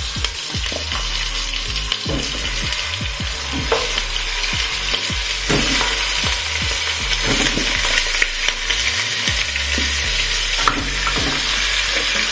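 Raw, freshly washed pork ribs frying in hot lard: a steady loud sizzle as the pieces go into the pot, growing a little louder as more are added, with occasional small knocks of meat and wooden spatula against the pot.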